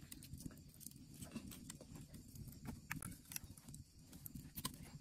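Wood fire crackling: scattered sharp pops and clicks over a low steady rumble.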